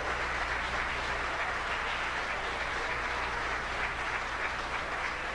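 A crowd of SpaceX employees at mission control applauding and cheering, a steady even clatter of many hands.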